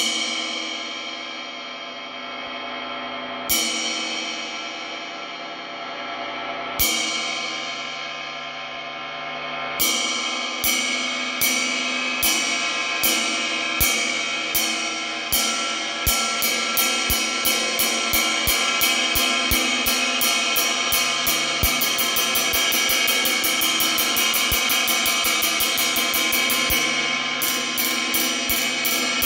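A 24-inch 1988 Paiste Sound Creation New Dimension Bell Ride struck with a wooden drumstick. First come three single hits, each left to ring out. Then the strokes quicken into a ride pattern of several strokes a second, with the cymbal's ring building up underneath.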